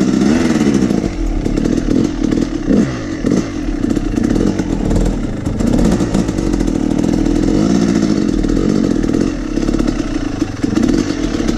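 Yamaha YZ250's single-cylinder two-stroke dirt bike engine, heard up close from on the bike, revving up and easing off again and again as it is ridden at low speed.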